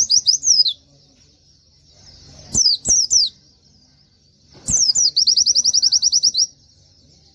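Oriental white-eye (pleci) singing in bursts of quick descending whistled notes: a short phrase at the start, a few notes about three seconds in, then a fast run of about twenty notes near the middle, roughly ten a second.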